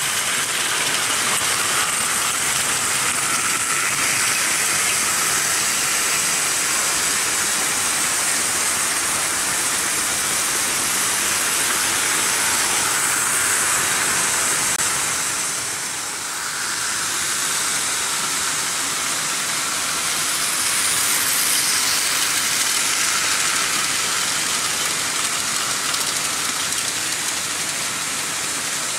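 Märklin H0 model trains running on stamped-steel M-track: a steady, high rushing noise of metal wheels rolling over the hollow track, briefly quieter about sixteen seconds in.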